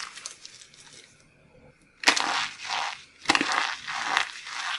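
Crumbled dry soap mixed with starch crunching as hands squeeze it. A few faint crackles are followed by a quiet second, then two loud crunching squeezes about a second apart, each trailing off in a grainy crackle.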